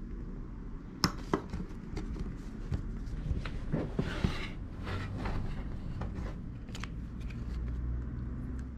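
Light clicks, taps and a short scrape of hands working a carved rubber eraser stamp with an art knife on a wooden tabletop, the sharpest clicks about a second in and a brief rustling scrape around the middle, over a low steady hum.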